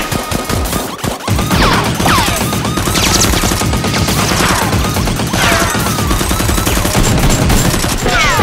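Rapid automatic gunfire sound effects: a steady stream of shots starting about a second in, with several falling whistling sweeps over it.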